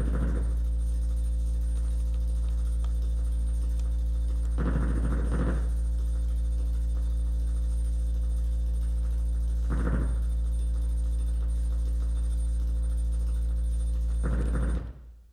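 Dance soundtrack music: a steady, deep droning tone with a short noisy swell returning about every five seconds, four times in all. The drone cuts off suddenly near the end.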